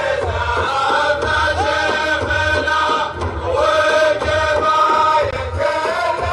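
Men's voices chanting a song in unison over a steady low beat.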